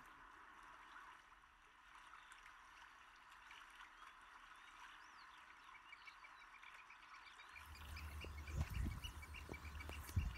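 Quiet open-air ambience with faint bird calls, then from about three-quarters in, wind gusting and buffeting the microphone.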